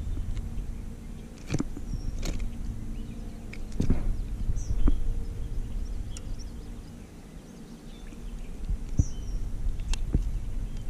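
A few scattered knocks and taps on the plastic hull of a sit-on-top kayak as a small bass is handled and unhooked, over a low steady rumble. Faint bird chirps come and go.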